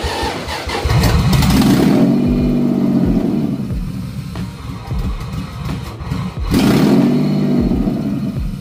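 Toyota 2JZ VVT-i inline-six engine starting on its newly wired stock ECU and running, revved up and back down twice: once about a second in and again near seven seconds.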